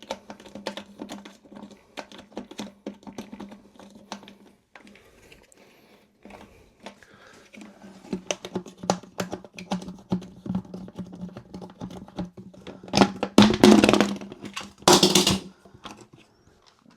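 Irregular light clicks and knocks of bidet and toilet parts being handled, over a faint steady hum, with two loud bursts of noise, each about half a second, near the end.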